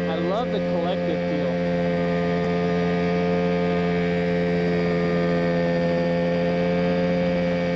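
Mosquito Air ultralight helicopter's engine and rotor running steadily in flight, heard from on board: a constant drone that holds one pitch throughout.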